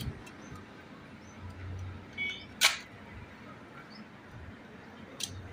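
Sharp clicks and light knocks from a car power window motor's housing and parts being handled and fitted back together by hand, the loudest about two and a half seconds in and another near the end, otherwise quiet.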